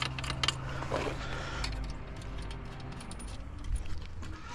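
Metal hand tools clicking and clinking on a motorcycle's rear axle and chain adjusters as they are loosened, with a quick run of clicks at the start and scattered ones after. A steady low hum sits underneath and fades out about three seconds in.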